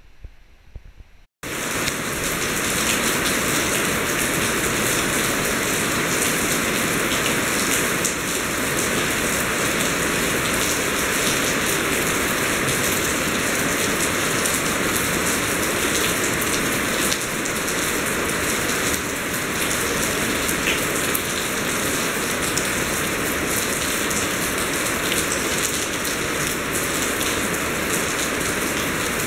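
Loud, steady rain falling: a dense even hiss with scattered drop ticks, starting abruptly about a second in.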